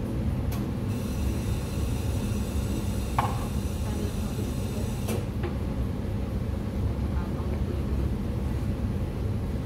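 Steady low hum of espresso-bar machinery, with a few light clinks of cups and barista tools.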